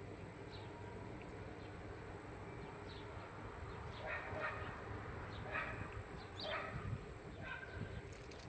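A dog barking four short times, about a second apart, over a faint steady outdoor background.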